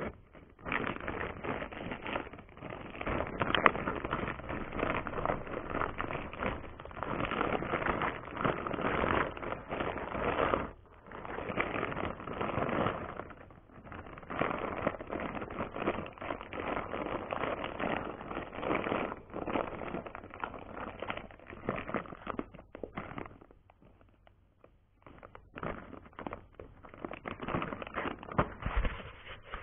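Clear plastic bag crinkling and rustling as it is handled, with brief pauses about a third of the way in and again past the middle.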